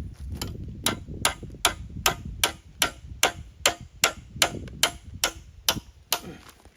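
A hammer striking metal in a steady run of blows, about two and a half a second, with a low rumble underneath.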